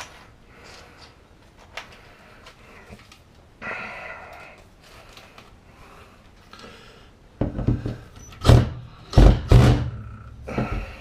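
A few light clicks and rustles, then a run of heavy, dull thuds and knocks from about seven seconds in. The loudest two come close together.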